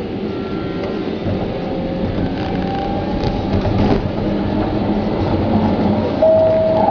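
Metro train running on the rails, a steady rumble that slowly grows louder, rising further as the train passes into a tunnel about six seconds in. Faint steady tones ride over it, with a short, stronger one near the end.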